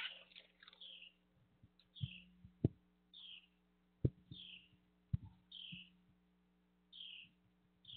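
Northern cardinals calling: a short, falling note repeated about once a second. A few sharp low knocks, the loudest sounds, fall in the middle stretch, over a faint steady hum.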